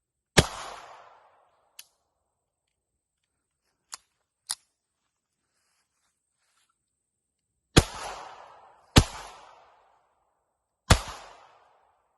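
Ruger Mark IV Target .22 LR semi-automatic pistol firing four single shots: one about half a second in, then after a long pause three more about a second or two apart, each trailing off in a short echo. A few faint clicks fall in the pause between.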